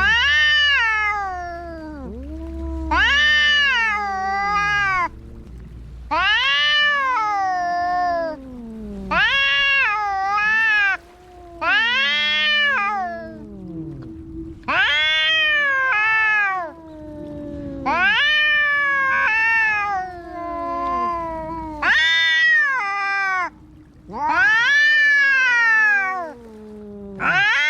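Domestic cats caterwauling at each other in a fight standoff. A string of long, drawn-out yowls comes roughly every two seconds, each rising and then falling in pitch, over a lower, steadier moan.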